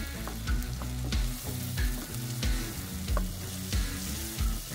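A wooden spoon stirring sliced onion, tomato and green chillies frying in oil in a metal pot. The spoon knocks and scrapes against the pot about three times every two seconds over a steady sizzle.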